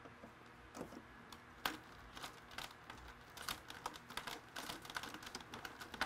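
Hand screwdriver turning a screw into a metal window-mounting bracket: faint, irregular small clicks and scrapes, starting about a second in.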